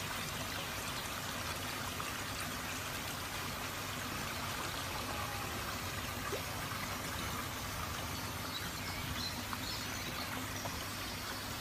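Steady rush of water running into a garden koi pond.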